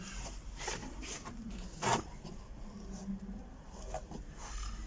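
Light scraping, crackling and clicking of rusted steel floor-pan metal being handled and pulled at by hand, with one louder sharp scrape about two seconds in.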